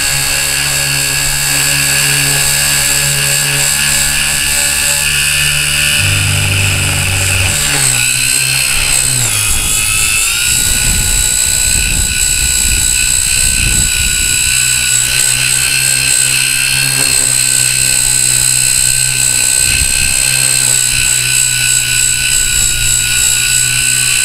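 Blade mCP X micro collective-pitch RC helicopter in flight, heard close up from a camera carried on it. Its electric motors give a loud, steady high whine over a low rotor hum, with the pitch shifting and gliding upward about a third of the way through.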